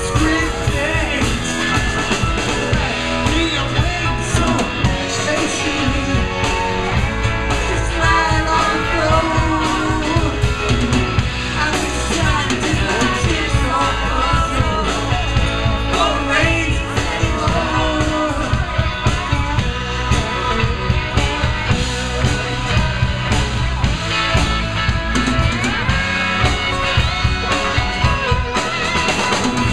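Live rock band playing a slow rock song: electric bass, drum kit, guitar and keyboards under a male lead singer.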